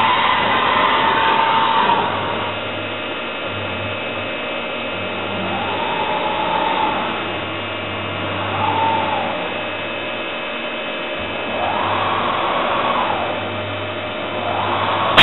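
Rambaudi Versamatic 500 CNC milling machine traversing its head: a steady machine hum, with an axis-drive whine that rises, holds and falls away about five times as each move speeds up and slows down.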